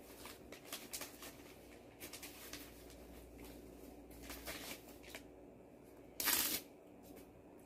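Light scattered clicks and rustles of food being handled, then a brief loud crackle about six seconds in as a crisp piece of guobaorou (Chinese fried sweet-and-sour pork) is torn apart by hand.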